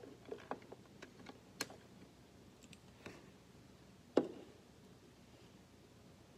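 Light plastic clicks and taps from handling a small plastic table-hockey player figure, several in quick succession in the first two seconds and a sharper knock about four seconds in.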